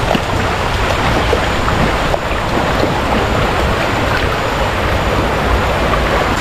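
Loud, steady rush of falling and flowing water at a waterfall.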